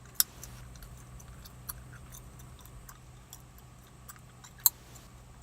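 Quiet room tone with two sharp clicks about four and a half seconds apart and a few fainter ticks between them.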